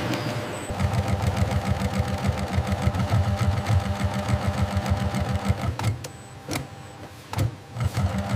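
Sewing machine running with a fast, even stitching rhythm that stops about six seconds in, followed by a few short knocks.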